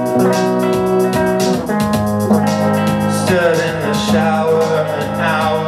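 Live band performance: an electric guitar plays sustained chords in a steady rhythm. A man's voice comes in singing about halfway through.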